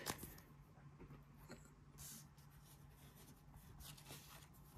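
Near silence with faint rustling and a few light clicks of a trading card in a plastic sleeve being handled and set down, over a low steady hum.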